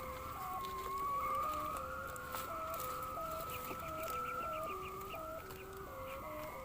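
A kite hummer (the bow-string hummer on a Thai kite) droning in strong wind: one steady, high hum that wavers slowly in pitch, with lower hums shifting between a few notes underneath.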